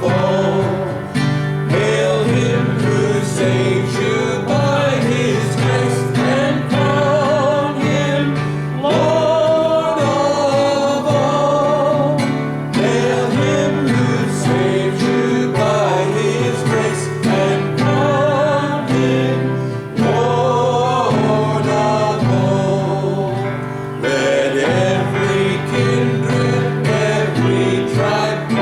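A hymn sung over plucked guitar accompaniment, the voice holding long notes with vibrato.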